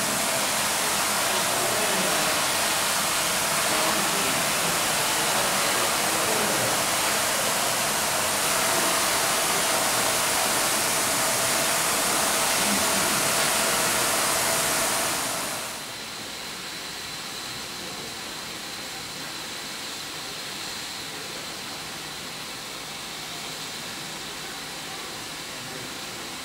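A loud, steady rushing hiss that drops to a quieter steady hiss about fifteen seconds in.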